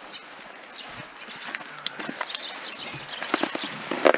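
Backpacks and kit being handled and packed: fabric rustling and dry leaves crackling, with scattered sharp clicks and knocks that bunch together near the end.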